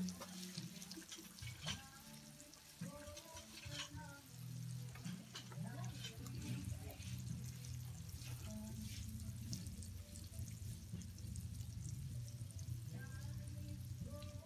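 Hot oil sizzling and crackling in a steel wok as pieces of milkfish intestine deep-fry, with scattered small pops throughout, over a steady low hum.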